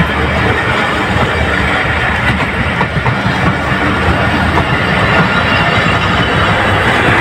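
Passenger coaches of a departing Pakistan Railways train rolling past at close range: steady loud noise of wheels running on the rails.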